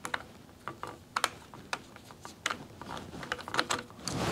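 Hand tool clicking irregularly as a screw on a motorcycle's handlebar switch housing is backed out, a few sharp metallic clicks a second.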